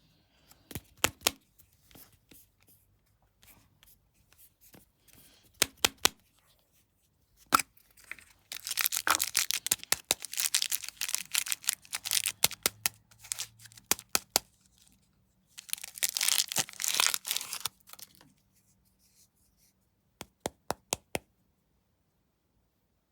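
Snack wrapper being torn open and crinkled: scattered sharp crackles, then two long spells of dense tearing and rustling in the middle, and a few more crackles near the end.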